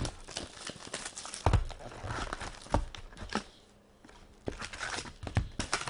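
A cardboard box of hockey card packs being opened by hand: the lid pulled open and the foil-wrapped packs inside crinkling, with scattered knocks and taps on the table.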